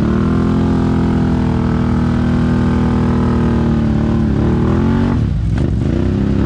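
Can-Am ATV engine running under throttle, its pitch climbing briefly at first and then holding steady. About five seconds in the throttle eases off and the pitch drops, then it picks up again.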